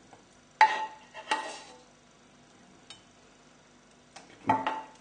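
A few sharp metallic clinks of kitchen utensils against a pan and plate, each with a short ring: one about half a second in, another a second later, and a quick pair near the end.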